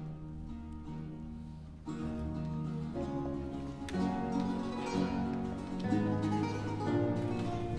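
Baroque ensemble playing an instrumental passage, with strummed and plucked guitars to the fore over strings and bass; the music grows louder about two seconds in.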